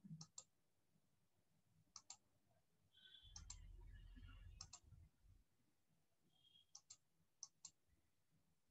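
Faint clicks of a computer mouse button, coming in quick pairs about six times, with a low hum for about two seconds in the middle.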